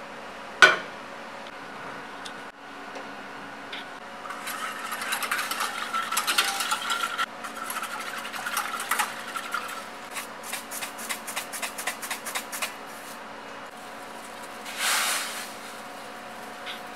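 A single sharp click about a second in, as the gas burner is lit. Then a wire whisk stirs salt into water in a small stainless-steel saucepan, scraping and clinking rapidly, then ticking evenly against the pan's sides, over a steady hum.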